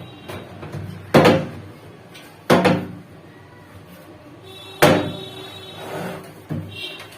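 Three sharp knocks, about a second in, near two and a half seconds and near five seconds, each ringing briefly, with lighter clatter between: parts and tools being knocked and set down while a washing machine is put back together.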